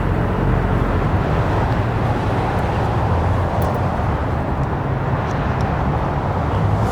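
Steady mix of car engines running and traffic rumble, with a few faint clicks about halfway through.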